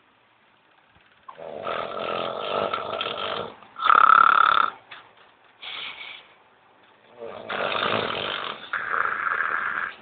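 A woman snoring in her sleep. A long snore starts about a second in, a shorter, louder one follows at about four seconds and a brief one near six, and another long snore in two parts comes near the end.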